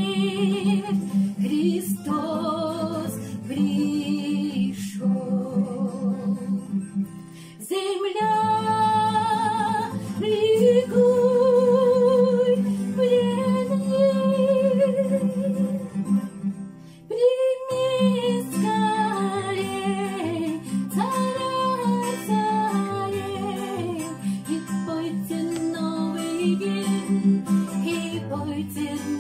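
A woman singing a Christmas hymn with vibrato over strummed acoustic guitar, with short pauses between phrases about eight and seventeen seconds in.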